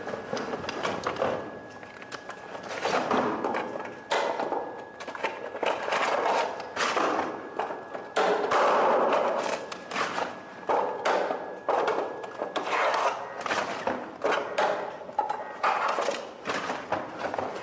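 Irregular clattering and scraping of objects being handled and rummaged through: a dense run of sharp knocks and clicks mixed with short rustling, scraping bursts.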